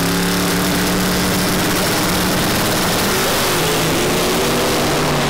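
Twin-turbo 540-cubic-inch V8 drag car run at full throttle off the line: a loud, unbroken engine sound.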